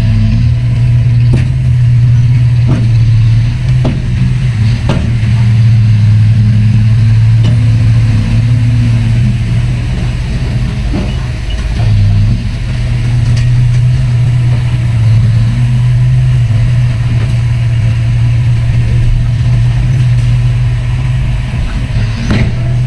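Heavy diesel engine of earthmoving machinery running with a steady low drone, with a few sharp knocks now and then.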